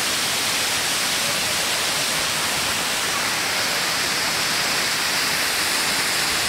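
Steady, even hiss of static-like noise at a constant level, covering every other sound, with no voices or events heard through it.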